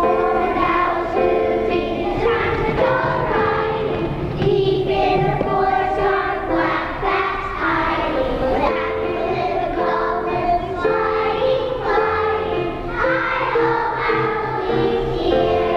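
A group of young children singing a song together in chorus.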